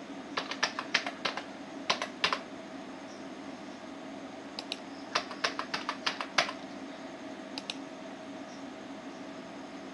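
Typing on a computer keyboard: quick runs of key clicks in a few short bursts with pauses between, over a steady low hum.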